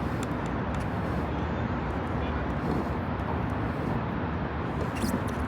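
Wind rushing steadily over the microphone, with a few faint clicks near the end.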